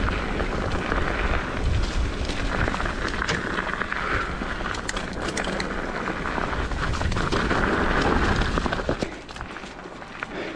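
Mountain bike descending a rutted, rocky dirt trail: a continuous rough rumble of tyres over dirt and rocks, with many sharp knocks and rattles from the bike. It gets quieter about nine seconds in.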